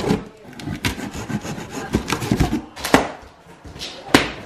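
Cardboard box being cut open: a blade scrapes through the packing tape along the seam, then the cardboard flaps are pulled open and rubbed, with several sharp snaps, the loudest near the end.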